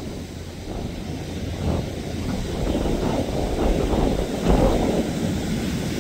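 Large sportfishing yacht running at speed, its engines and churning wake heard as a low rumbling rush, with wind buffeting the microphone. It grows louder about halfway through.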